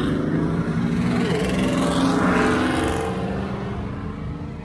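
Dodge Scat Pack Widebody's 6.4-litre Hemi V8 running as the car drives, heard from inside the cabin along with road noise. The sound swells briefly about two seconds in and eases off toward the end.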